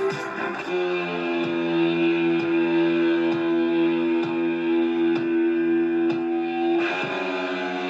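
Music from a radio station coming out of a General Electric AM/FM clock radio: a guitar holds one chord over a light, steady beat, and the music moves on about seven seconds in.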